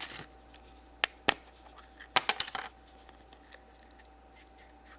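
Sharp clicks and small clatters of hard plastic: a Kinder Surprise egg's plastic toy capsule being handled and snapped open. There is a click at the start, two more about a second in, and a quick run of clicks a little after two seconds.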